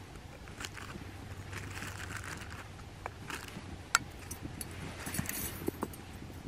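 Hands handling a plastic food bag and cooking utensils: rustling of the bag with light clicks and knocks, and one sharp click about four seconds in.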